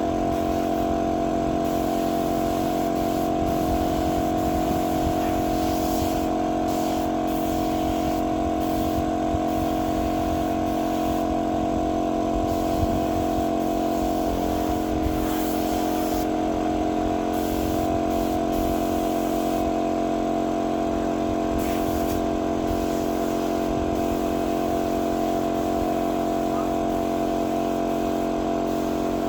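A motor or engine running steadily, a constant droning hum. Its pitch shifts slightly about halfway through.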